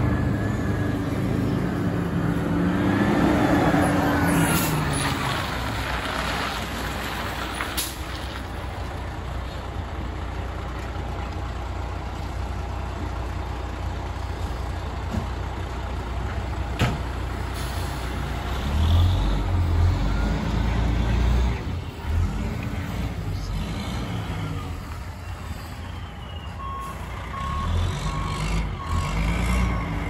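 Fire department aerial ladder truck's diesel engine running as it maneuvers at low speed, its pitch rising and falling, with a hiss of air brakes. Near the end its evenly spaced reversing beeper sounds as it backs up.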